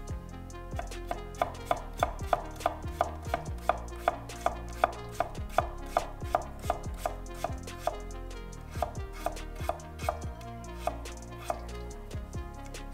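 Fujiwara Denka Aogami Super nakiri knife slicing peeled mango on an end-grain wooden cutting board: crisp knocks of the blade on the board, each with a short ring, at about three a second. After about eight seconds the cuts slow and space out.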